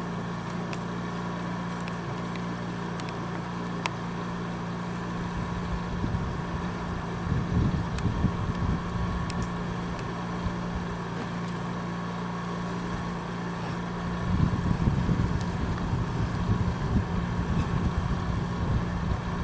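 Steady low hum under outdoor background noise, with irregular low rumbling of wind buffeting the microphone in two stretches, about seven seconds in and again from about fourteen seconds.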